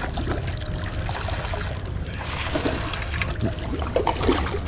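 Stream water splashing and trickling as a hooked smallmouth bass is pulled in through the shallows, with scattered light clicks over a steady low rumble.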